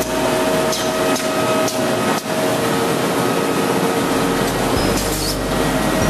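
Automatic Z-fold hand towel wrapping machine running: a steady mechanical hum and whir, with a few sharp clacks about half a second apart in the first two seconds.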